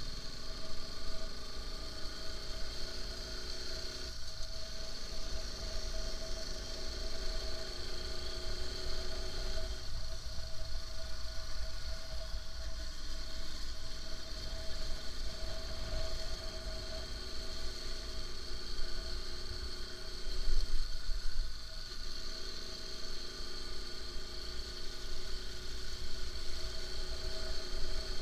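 Motorcycle engine running under way, heard from the bike itself, with a steady low wind rumble on the microphone. The engine note shifts and drops back several times as the throttle is eased and reopened.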